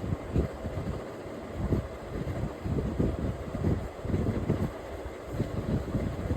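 Hands rubbing, kneading and patting an oiled scalp in a head massage: an irregular run of dull, low rubbing and patting strokes, several a second.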